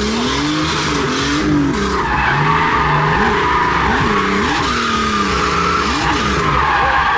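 Drift car heard from inside the cabin, its engine revving up and down about once a second as the throttle is worked, with the tyres squealing steadily as the car slides sideways.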